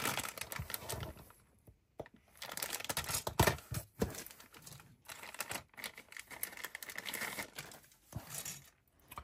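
Thin plastic kit bag crinkling as it is handled, on and off, with a brief pause about a second and a half in.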